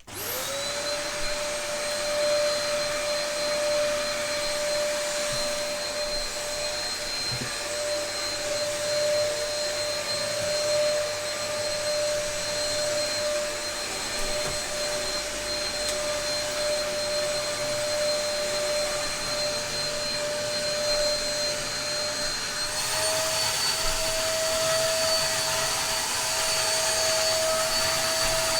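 Dyson DC03 upright vacuum cleaner switched on, its motor spinning up within half a second and then running with a steady whine over a rushing hiss. About 23 seconds in, the pitch rises slightly and the hiss gets brighter.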